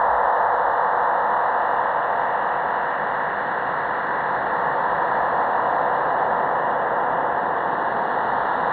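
Shortwave receiver in upper-sideband mode playing a steady whooshing hiss, a band of noise centred around 1 kHz with no tones in it. It is the unidentified whoosh heard on 15105 kHz.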